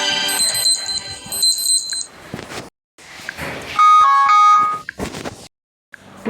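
Short electronic alert tones from a Micromax Canvas S4 phone's stock sound set, played one after another: a chiming tone that fades out about two seconds in, then, after a brief silence, a loud, quick run of beeping notes about four seconds in.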